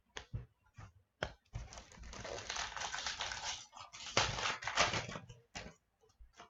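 Foil wrapper of a hockey card pack crinkling as it is torn open and handled. A few sharp clicks and taps come first, then about four seconds of crinkling.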